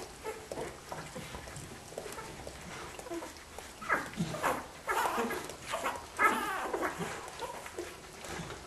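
Week-old Australian Kelpie puppies squeaking and whimpering, a run of short cries in the middle, amid small wet clicks.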